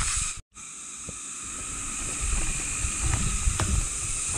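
Wind buffeting the microphone in low gusts over a steady high hiss, with a few light clicks and knocks from the hike. The sound cuts out completely for a moment about half a second in, then fades back.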